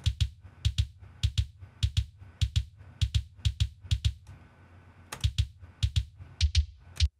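Recorded kick drum track played back soloed: a pattern of bass drum hits in single and paired strokes, each with a deep low body and a sharp beater click on top. The kick is EQ'd but its compression is switched off.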